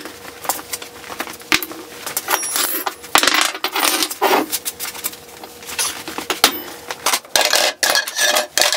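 Steel blacksmith tongs, hammers and a rack bar clanking and clinking as they are handled, lifted off a wall rack and dropped into a bucket. It is an irregular run of sharp metallic knocks, some of them ringing briefly.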